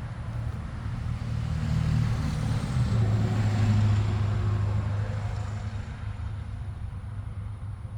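A motor vehicle passing by: its engine hum gets louder to a peak about four seconds in, then fades away.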